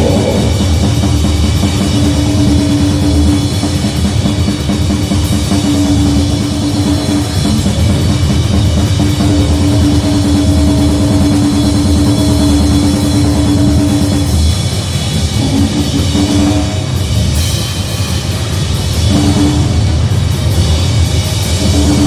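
Loud, distorted noise music in a grindcore/crust vein, with fast, dense drumming and a held low drone. The drone breaks up into short stabs about two-thirds of the way through.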